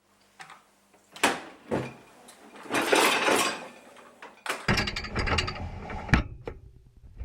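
Clicks and thuds of a car door and its latch being worked, with a hissing stretch about three seconds in and a low rumble setting in about halfway.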